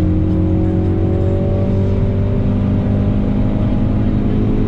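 Ford Focus RS Mk3's turbocharged 2.3-litre four-cylinder accelerating hard in gear, its pitch climbing steadily, heard from inside the cabin.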